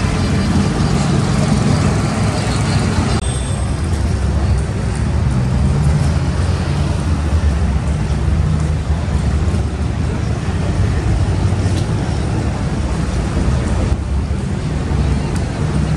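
Steady city road traffic: cars running along a busy avenue, a continuous low rumble.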